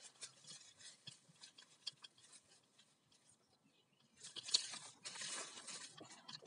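Rustling and light crackling of the camera being handled and set down among dry bamboo leaf litter: scattered small crackles at first, a short near-quiet pause, then a longer rustle in the last couple of seconds.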